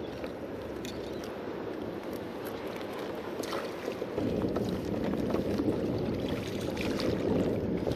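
Water sloshing and lapping against a Hobie Pro Angler 12 kayak's hull, with wind on the microphone. The water noise grows louder about halfway through, and a few light clicks sound over it.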